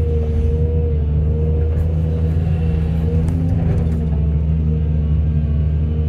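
Heavy excavator's diesel engine running steadily under load, with a wavering whine over the deep drone and a few faint knocks about halfway through.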